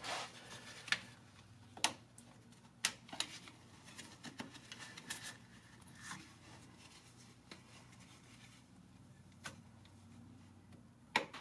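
Scattered sharp clicks and light scrapes, about one a second, as a flat-blade screwdriver pries at the plastic retaining ring and clip of a transmission line quick-connect fitting, over a faint low steady hum.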